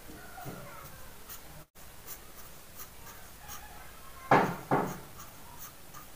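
Felt-tip marker drawing short strokes on paper, a faint scratching with frequent light ticks. A little after four seconds in come two short, much louder noises about half a second apart.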